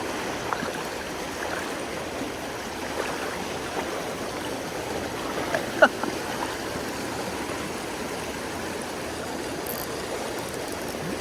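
Creek water running steadily over riffles, with a brief sharp sound just before six seconds in.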